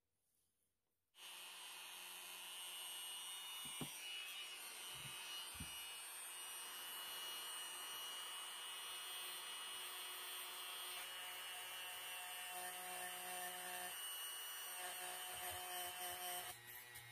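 Handheld Dremel-style rotary tool switching on about a second in and running at a steady speed, its felt buffing bit polishing the brass body of a carbide lamp. It gets quieter near the end.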